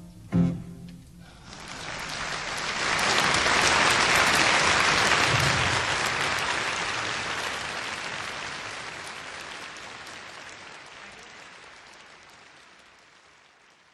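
A last short note from the band about half a second in. Then an audience applauds, the clapping swelling over a couple of seconds and then slowly fading out.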